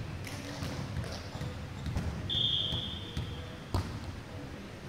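A volleyball rally on a wooden gym court, echoing in a large hall: scattered ball contacts and footfalls, a single high sneaker squeak lasting about a second around the middle, and one sharp smack of the ball being hit near the end, the loudest sound.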